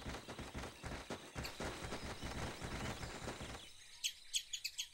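Cartoon sound effects: a dense patter of quick running footsteps. Then, from about three and a half seconds in, plantain squirrels chittering in short, high, bird-like chirps repeated several times a second.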